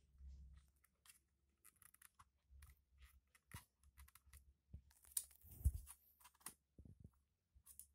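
Faint plastic clicks and taps as fingers press the keyboard ribbon-cable connectors and then the keyboard of an Axioo Pico netbook into place, with a denser run of clicks about five seconds in.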